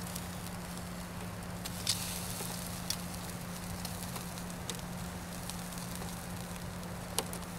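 Beef steaks sizzling on a wire grill over a charcoal fire: a steady hiss with a handful of sharp pops.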